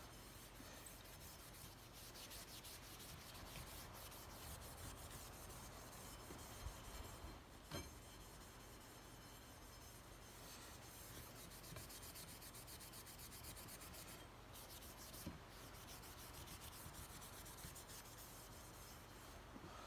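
Faint, steady rubbing of a hand working along the steel barrel of a Lyman Great Plains muzzleloading rifle while it is being browned, with an occasional light knock.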